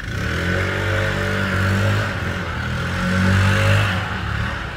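A motor vehicle engine running steadily, growing louder about three seconds in and then fading.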